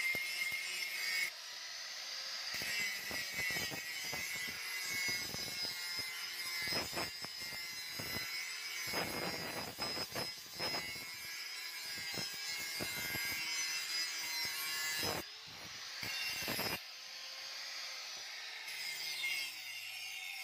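Handheld angle grinder with a flap disc running with a steady high whine, grinding a steel blade made from a chainsaw bar in repeated scraping strokes.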